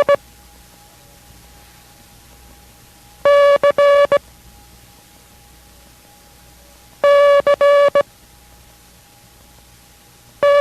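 Morse code letter C (dah-dit-dah-dit) sent as a steady pitched beep. The last dit of one sending ends just at the start, two full sendings follow about four seconds apart, and another begins near the end.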